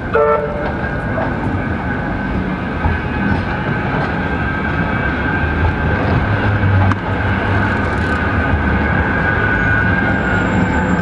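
Bombardier M5000 Metrolink tram moving slowly past on street track: a steady electric whine over a low running hum that grows stronger from about five seconds in, against city street bustle. A short tone sounds at the very start.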